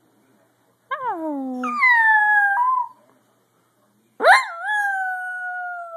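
Dachshund howling: two long howls. The first starts about a second in and slides down in pitch with a break partway; the second starts about four seconds in with a quick rise and a wobble, then holds on a slowly falling note.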